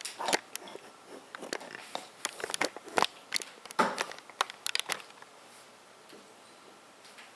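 Light clicks and plastic handling noises as a second stick of RAM is picked up and handled for installation, a busy run that dies away about five seconds in.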